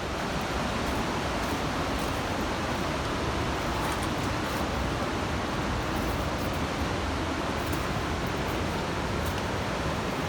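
The steady, unbroken rush of the Coquihalla River's water through the gorge.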